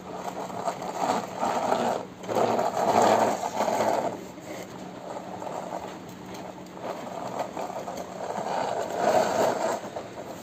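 Plastic toy police jeep rolled back and forth by hand on a rough concrete floor, its wheels and workings rattling and grinding in bursts of a second or two, loudest from about two seconds in and again near the end.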